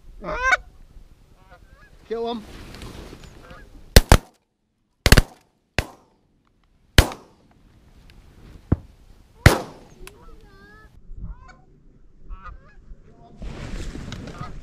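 Canada geese honking, then a volley of about seven shotgun shots fired between about four and ten seconds in, followed by more honking.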